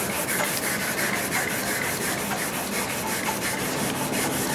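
Sheet sandpaper rubbed by hand over the painted steel top of a metal cabinet, in quick, even back-and-forth strokes, taking the yellow paint and rust down to bare metal.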